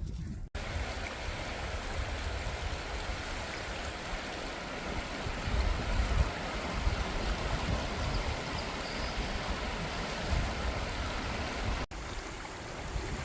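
Flowing river water, a steady rush with a low, uneven rumble underneath. The sound drops out for an instant about half a second in and again near the end.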